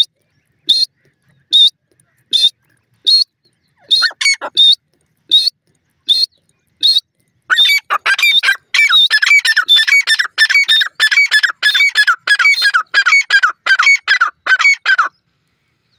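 Grey francolin calling: short, sharp single notes about every second, then from about seven and a half seconds in a fast run of loud repeated call phrases that stops shortly before the end.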